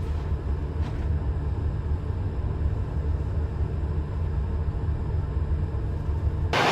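Steady low rumble of a moving vehicle, with one faint click about a second in; it cuts off abruptly near the end.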